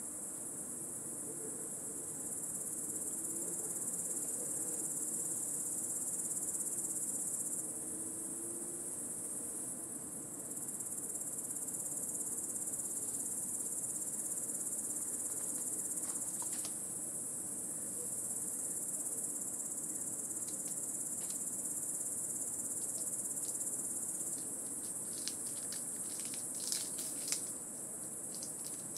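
Cicadas singing in an intense, dense chorus, a continuous high-pitched buzz that swells and drops in level a few times. A few faint clicks come near the end.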